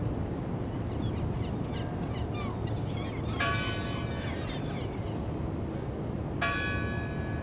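A church bell tolling twice, about three seconds apart, each stroke ringing on as it fades, over a steady low background rumble. Short chirps of birds come just before the first stroke.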